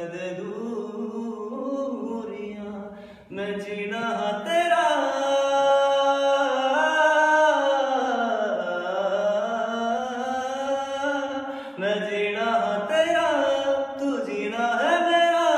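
A man singing solo without accompaniment, holding long drawn-out notes that glide up and down in a melismatic Punjabi film-song style. He pauses briefly about three seconds in and again near twelve seconds.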